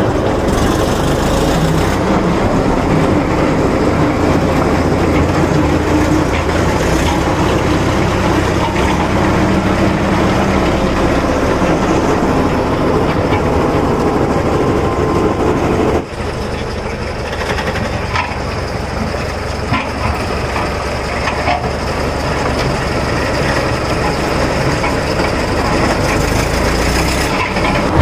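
Jessop road roller's diesel engine running steadily while the roller is driven. The sound drops suddenly to a lower level a little past halfway.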